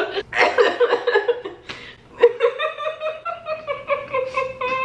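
People laughing, then one voice holding a long drawn-out vocal note that slowly falls in pitch.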